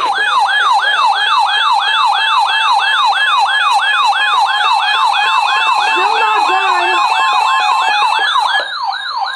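Electronic emergency-alert attention tone: a loud siren-like wail, its pitch sweeping rapidly up and down about three times a second over a steady high beeping tone.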